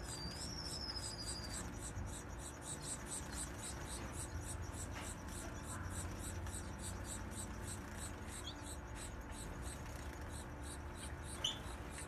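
Small aviary finches calling: a short whistled call at the start and a few brief chirps later, the sharpest near the end. Under them runs a steady high chirping of about four pulses a second.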